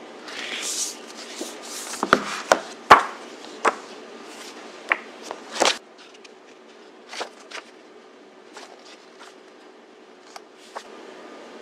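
A paperback recipe book being handled and its pages turned on a table: a short rustle of paper, then a run of sharp taps and knocks, with fainter page flicks later.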